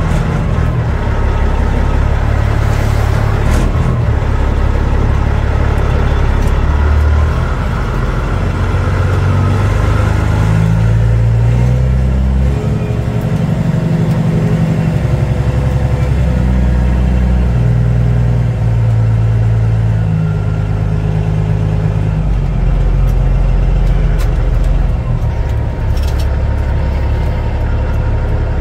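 Caterpillar C15 (6NZ) diesel engine of a Peterbilt 379, heard from inside the cab as the truck moves at low speed, its revs rising and falling several times.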